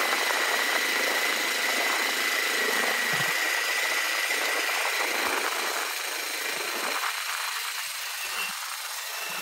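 Steady rushing road noise of a motorcycle tyre rolling on asphalt, heard from a camera mounted close to the wheel. A faint thin whine runs through the first few seconds, and the noise eases slightly near the end.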